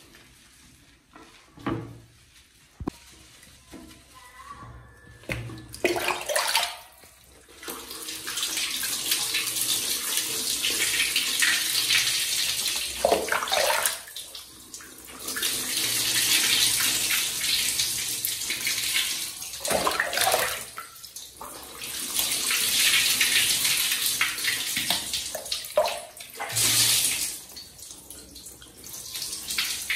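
Water poured from a plastic scoop over a baby monkey to rinse it, in several runs of splashing a few seconds each with short gaps between. The first few seconds hold only a few small knocks.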